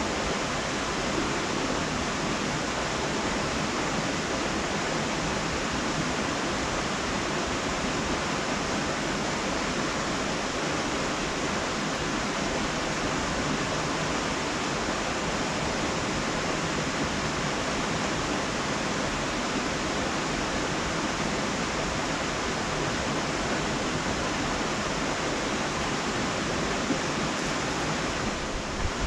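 Steady, even rushing hiss that stays the same throughout.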